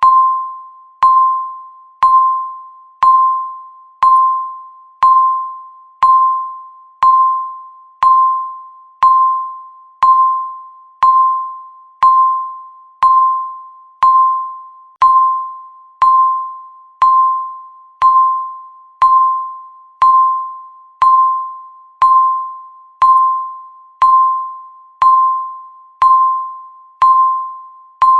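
Countdown timer beeping once a second: a single pure electronic tone that starts sharply and fades away before the next beep.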